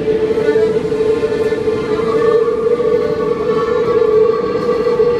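Paris Metro MF 67 train running through a tunnel, heard from inside the car: a steady high whine over the rumble of wheels on rails, with a second, higher tone joining about two seconds in.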